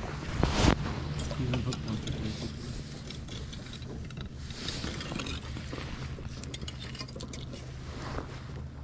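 Ice skimmer scooping ice chips and slush out of an ice-fishing hole, with repeated light clinks and wet sloshing. The loudest clink comes about half a second in, over a steady low hum.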